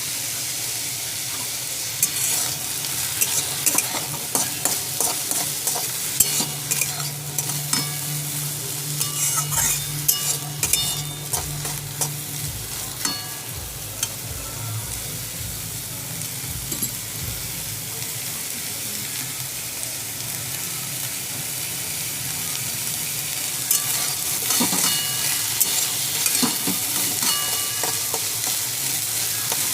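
Sweet corn kernels sizzling in a little hot oil in a kadai, with a spatula scraping and clicking against the pan as they are stirred. The stirring comes in spells, pausing for a few seconds just past the middle.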